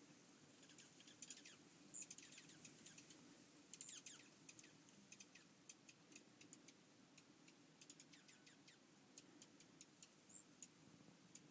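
Small birds chirping faintly: many short, high chirps and quick falling calls, scattered irregularly throughout.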